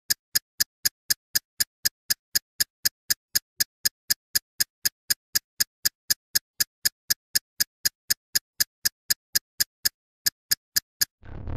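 Sharp, even ticking, about four ticks a second, like a clock or metronome, with a brief break near the end and silence between the ticks.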